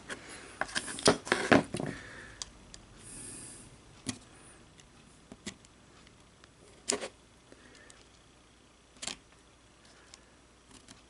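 Small metal clicks and taps of a screwdriver and bit being worked on the hammer screw of a musket lock. There is a quick cluster of clicks at first and a brief scrape, then single sharp clicks every second or two.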